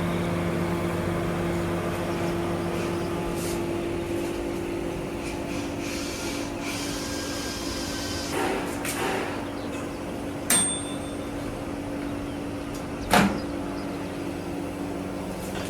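A steady mechanical hum. About two-thirds through, a sharp metallic clink rings briefly, and a second sharp knock follows a few seconds later.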